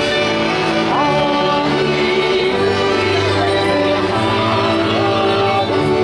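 Music with a sung or bowed melody over steady sustained chords.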